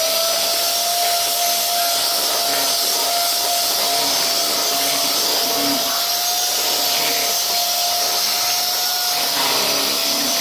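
Electric hand mixer running at a steady speed, its beaters whisking chocolate cake batter in a plastic bowl. The motor gives a constant whine whose pitch dips slightly near the end.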